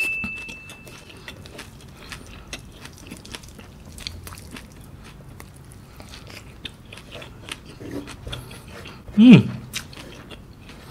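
Close-up chewing and wet mouth clicks of someone eating rice and raw young cashew leaves by hand. A chiming tone fades out in the first second, and a short hummed vocal reaction comes near the end.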